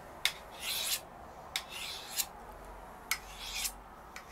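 Steel knife blade being sharpened freehand on a sharpening stone: about three rasping strokes, each marked by a sharp click as the blade meets the stone. The edge is still too dull to cut, so the strokes come at a quicker pace.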